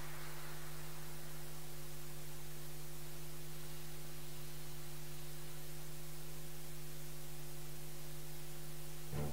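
Steady electrical mains hum made of several even tones, running unchanged. Right at the end a first loud musical note strikes.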